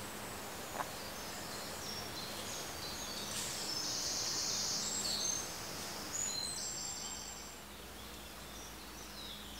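Birds singing: high-pitched trills and chirps, busiest in the middle, over a faint steady low hum.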